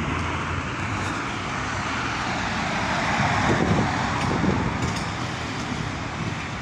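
Demolition machinery at work: a heavy engine running under a noisy rush that swells about three to four seconds in.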